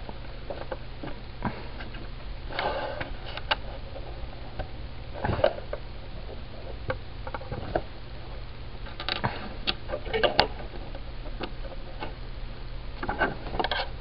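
Small plastic Lego pieces clicking and tapping as they are handled and pressed together: scattered sharp clicks that come in several short clusters.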